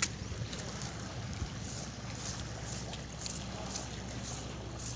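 A motor running steadily with a low, even hum, with wind on the microphone and a few faint ticks.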